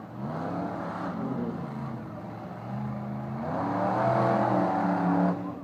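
Monster truck engine revving up twice: a short rise in pitch about a second long, then a longer, louder run that climbs, holds and cuts off near the end.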